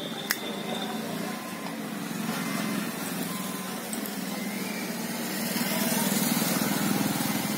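Small engine running steadily, its low hum growing louder from about five seconds in. A single sharp click sounds just after the start.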